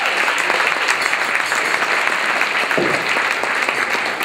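Audience applauding steadily, a dense patter of many hands clapping, welcoming dancers onto the floor.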